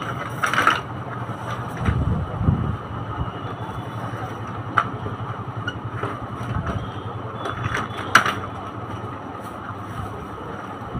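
Baby walker's plastic base and steel tube frame being handled and turned over, giving a few clicks and knocks, the loudest about eight seconds in, over a steady low rumble.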